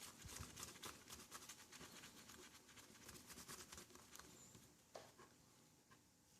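Faint rubbing with many small ticks: a smartphone's glass screen being wiped clean by hand before a screen protector goes on. The ticks thin out toward the end.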